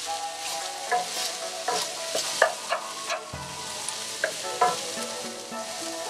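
Sliced red onions sizzling in hot oil in a nonstick pan over medium-high heat, a steady sizzle. A wooden spatula stirs through them, scraping and knocking against the pan about nine times between one and five seconds in.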